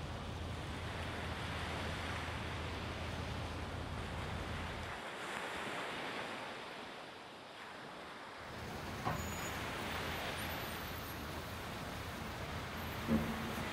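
Harbour ambience: a steady low engine hum under wind and the wash of water. The hum drops out for a few seconds midway, leaving only wind and water, then returns, with a couple of short knocks later on.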